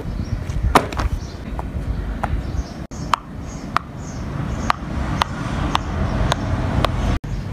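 Silicone pop-it bubbles on a notebook cover pressed one after another by a finger, each giving a short sharp pop, about two a second.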